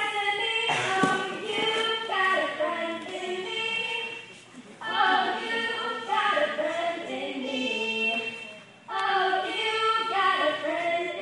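Singing: several voices together in a song, in phrases broken by two short pauses, about four and about nine seconds in.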